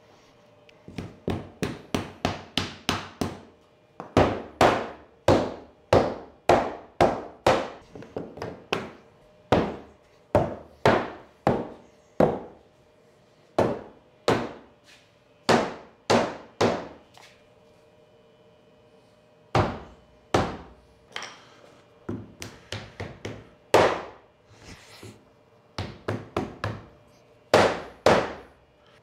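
Mallet striking the tops of long hardwood boards lying on a CNC router bed: quick runs of sharp knocks, about three to four a second, broken by short pauses.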